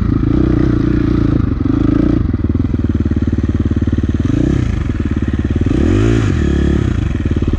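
Four-stroke single-cylinder dirt bike engine running loud and close, with two brief blips of the throttle, about four and a half and six seconds in.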